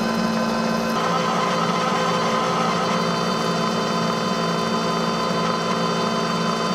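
Bridgeport milling machine running in low speed with a stubby drill bit cutting a hole in a metal bar: a steady motor hum with several constant whining tones. The mix of tones shifts slightly about a second in.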